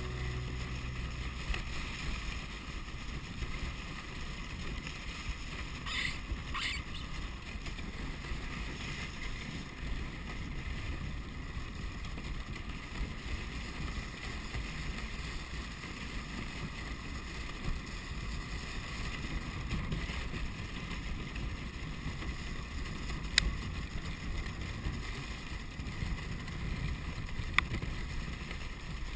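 Dog sled gliding over snow: a steady rushing noise of the runners and wind on the GoPro housing. There are sharp knocks from the sled about two-thirds of the way through and again near the end.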